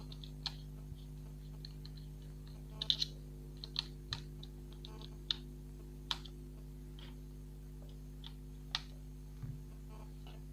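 Scattered sharp clicks and taps of small metal and plastic parts being handled on a laptop motherboard, around its copper heat-pipe heatsink and CPU: a quick cluster about three seconds in, then single clicks every second or two, over a steady low hum.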